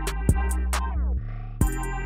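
Background music with a beat: deep held bass notes under sharp drum hits and high ticking cymbals. The beat breaks off for a moment just past a second in, then comes back with a hit.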